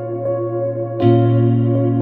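Ambient meditation music: held, sustained chords over a steady low bass note, with a new chord coming in about a second in.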